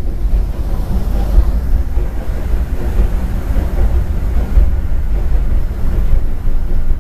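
Narrow-gauge passenger train running along the track, heard from aboard a car: a steady, loud low rumble of wheels on rails.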